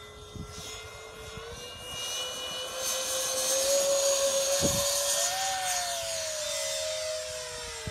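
Twin electric ducted fans of a radio-controlled Me 262 jet model whining at full power on its takeoff roll and lift-off. The whine rises in pitch and grows louder over the first few seconds, and a second whine that climbs and then falls in pitch joins it as the plane goes past.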